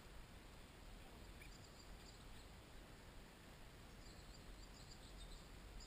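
Near silence: faint outdoor background hiss with a few faint, brief bird chirps.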